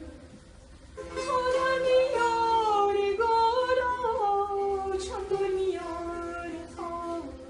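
A woman singing a Persian song in a solo voice, starting about a second in, with ornamented, gliding phrases and held notes. A long-necked lute accompanies her.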